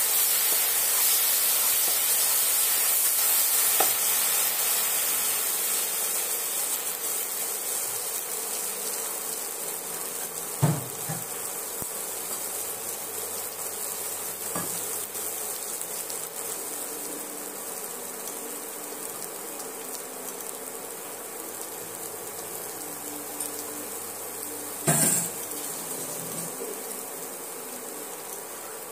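Ground spice paste with yogurt sizzling in hot oil in a nonstick kadai, the sizzle slowly dying down as it fries. A few short knocks, the loudest near the end.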